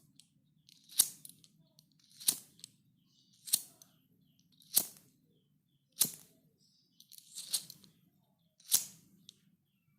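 A lighter being struck again and again, one sharp click about every second and a quarter, with one strike near the end of the second half doubled. A faint low hum lies underneath.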